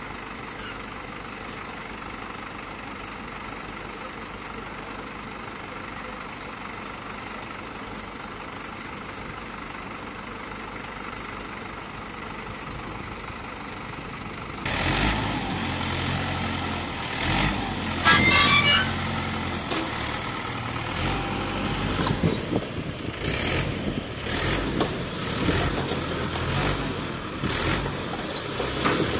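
Mahindra 575 DI tractor's four-cylinder diesel engine idling steadily, then about halfway through suddenly revving up and running hard, with irregular knocks and rattles, as the hydraulic tipper raises the loaded brick trolley.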